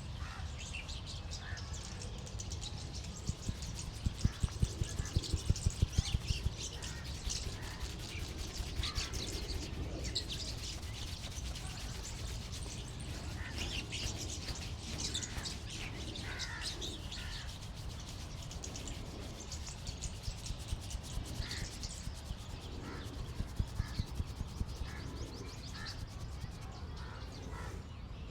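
A barber's hands at work on a head massage: continuous rubbing and quick rhythmic slapping, with two runs of louder fast slaps, one about four to six seconds in and another near the end. Birds chirp in the background.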